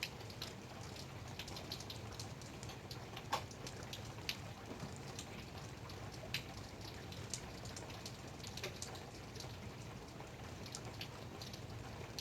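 Light rain falling: a soft steady hiss with single drops ticking sharply at irregular intervals.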